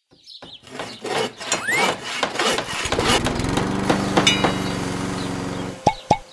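Cartoon sound-effect montage. Scattered clicks and knocks and a short rising whistle come first. A small engine then runs steadily for about three seconds. Quick, short pitched pops close it.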